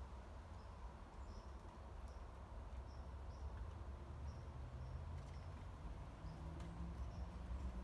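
Faint, short high chirps repeated about every three-quarters of a second, the call of a small animal, over a low steady rumble.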